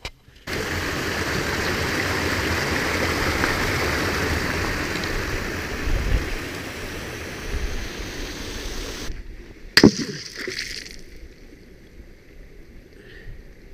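Water rushing over an ice-coated waterfall in a half-frozen mountain stream: a steady rush that starts about half a second in and stops suddenly near nine seconds. It is followed by one sharp knock and a much quieter stretch.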